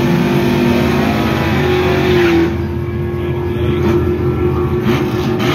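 Pickup truck engine held at high revs in a burnout, rear tyres spinning in smoke. The engine note stays steady, and the hiss over it eases about two and a half seconds in.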